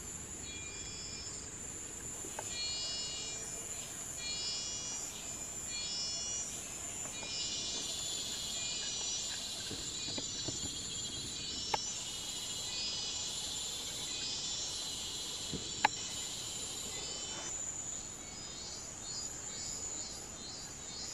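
Forest insects calling: a steady high-pitched drone with repeated pulsing chirps over it. Two sharp clicks stand out, one a little past halfway and a louder one about three-quarters through.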